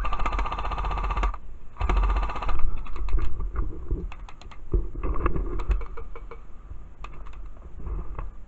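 Airsoft rifle firing on full auto: two bursts of rapid, even clicks, the first about a second long and the second shorter. Scattered single clicks and knocks follow.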